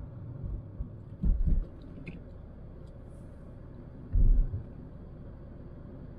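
Car road noise heard inside the cabin while driving: a steady low rumble, with two heavier low thumps, about a second in and about four seconds in.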